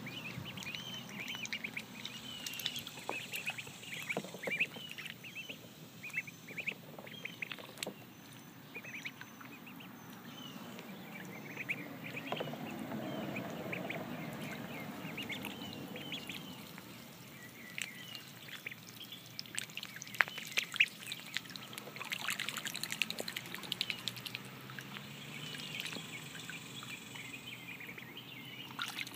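Runner ducklings peeping over and over with short, quick calls while they swim and dabble, along with water splashing and lapping in a plastic wading pool.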